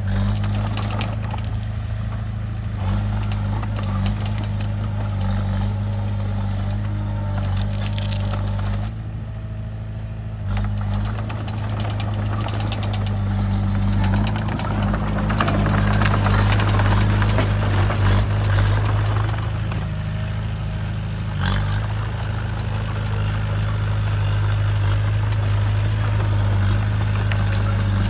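Heavy diesel construction machinery running steadily, with scattered knocks and cracks over the engine drone. The engine works harder for a few seconds past the middle.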